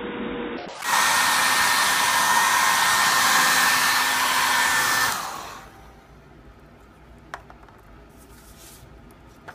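Hair dryer blowing air into an upturned cup pressed onto wet alcohol ink, running steadily with a high whine. It is switched off about five seconds in and winds down over half a second, leaving a quiet room with a couple of light taps.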